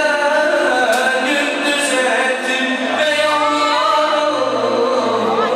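A man singing into a handheld microphone, his voice the loudest sound.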